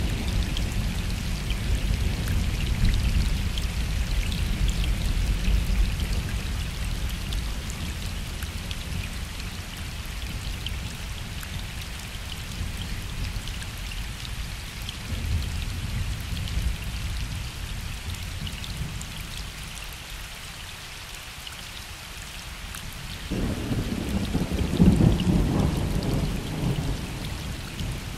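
Gentle rain falling on a lake, with distant thunder rumbling low. One long rumble fades over the first several seconds, a fainter one comes partway through, and a louder peal starts about four fifths of the way in, then slowly dies away.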